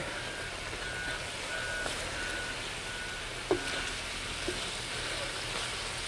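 Pork neck chunks with onion and green pepper sizzling steadily on a wide iron pan over a fire as they are stirred with a wooden spatula. Faint short beeps repeat about every half second through the first half.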